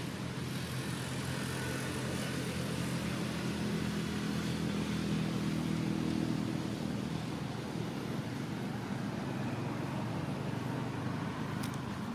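Steady low hum of a motor vehicle engine running, swelling a little midway and easing off toward the end.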